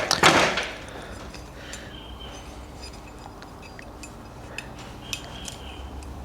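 Handling noise of small parts being worked by hand: a brief louder rustle at the start, then scattered light clicks and clinks of metal connectors and tools over a low background hum.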